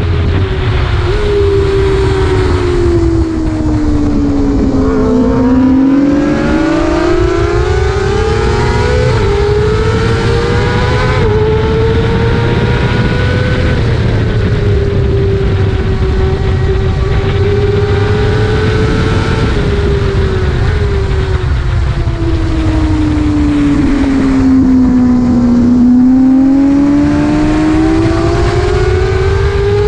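Sportbike engine at high revs heard from on board, under a steady rush of wind. Its pitch sinks twice, about 3 s in and again about 21 s in, as the bike slows for a corner, then climbs back through upshifts as it accelerates out.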